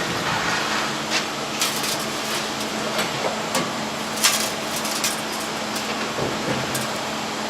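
Scattered light knocks and clicks over a steady background hiss.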